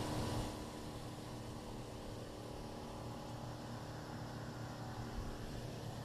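Canopied motorboat running steadily at speed: an even engine drone under the rush of water thrown off the hull.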